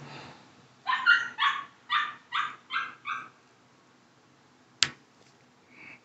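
A dog barking, a quick run of about seven barks over two and a half seconds. A single sharp click follows near the end.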